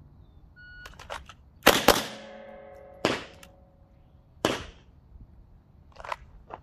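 A semi-automatic pistol drawn from a concealed waistband holster and fired: light clicks of the draw, then a quick pair of shots, followed by two more single shots about a second and more apart, with a brief ringing after the first pair. Fainter knocks near the end as the pistol goes back into the holster.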